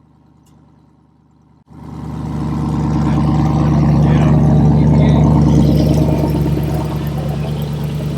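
A 4x4's engine, faint at first, is suddenly much louder from about two seconds in. It runs steadily under load as the rig climbs an articulation ramp, grows to its loudest midway and eases a little near the end.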